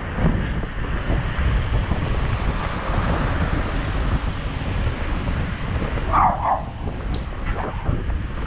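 Wind buffeting the microphone of a moving rider, a steady rushing rumble. A dog barks twice in quick succession about six seconds in, with a fainter bark a second later.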